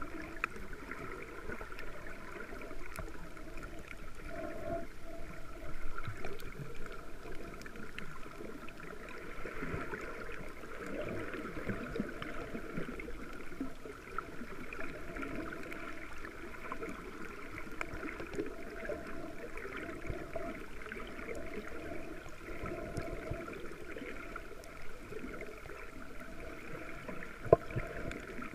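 Underwater sound picked up by a camera in a waterproof housing moving over a shallow coral reef: a steady, muffled wash of water with scattered faint clicks, and one sharp click near the end.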